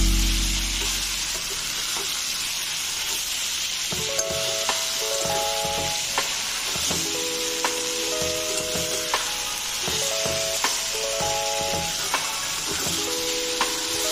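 Taro-leaf (patra) masala curry sizzling in the pan as it is stirred, with a spatula clicking against the pan now and then. A light background melody repeats over it from about four seconds in.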